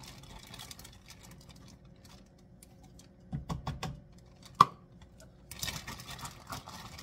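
Plastic zip-top bag crinkling and a plastic measuring cup scooping chopped bell peppers, with bunches of light clicks and rustles and one sharp knock a little past halfway.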